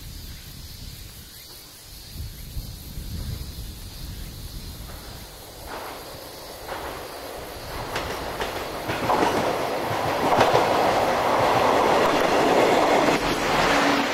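KiRo 59 'Honobono SUN-IN' diesel joyful train coming out of a tunnel and passing close by. A low engine rumble grows into loud running noise, with wheels clacking over rail joints, and is loudest over the last five seconds.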